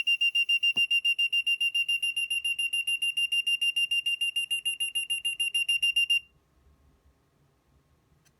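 Active buzzer on a homemade LM358 thermistor fire-alarm circuit sounding: a loud, high-pitched rapid beeping, about seven beeps a second, which cuts off suddenly about six seconds in. The buzzer sounding is the sign that the thermistor has been heated past the temperature set with the trimmer.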